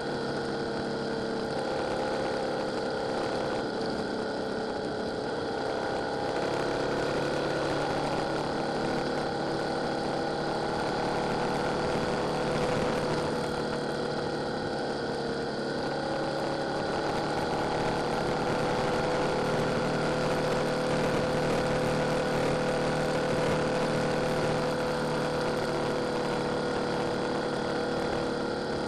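Yamaha Tracer 7's 689 cc parallel-twin engine running at a steady cruise, its note drifting slightly up and down over a constant haze of wind and road noise.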